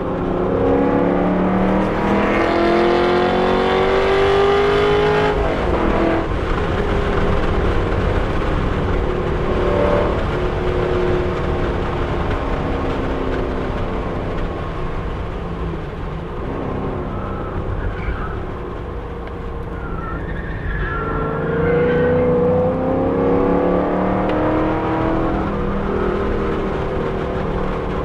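Chevrolet Camaro SS 1LE's 6.2-litre V8 heard from inside the cabin under hard acceleration, its pitch climbing for about five seconds before the driver lifts. It runs lower and quieter through the middle, then climbs again under full throttle near the end.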